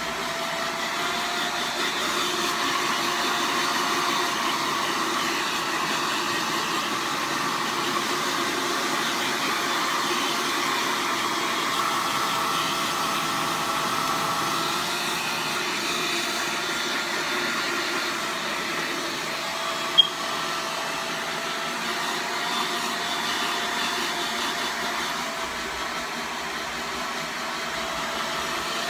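Yellow handheld hair dryer running steadily as it blows through hair, its whine shifting a little in pitch as it is moved about. A single sharp click about twenty seconds in.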